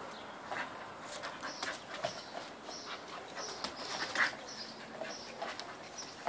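Dogs playing on a tiled floor: scattered clicks and scuffles of paws and claws on the tiles, with short high chirps recurring throughout.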